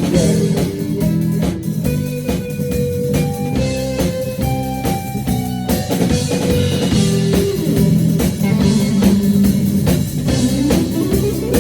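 A rock band playing an instrumental passage between sung verses: guitar holding and sliding between notes over a steady drum-kit beat.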